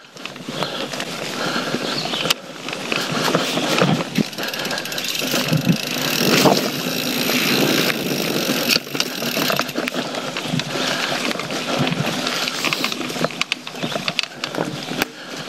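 YT Jeffsy full-suspension mountain bike ridden fast down a dirt forest trail: tyres rolling and scrubbing over dirt and leaves, with the bike rattling and clicking over roots and bumps.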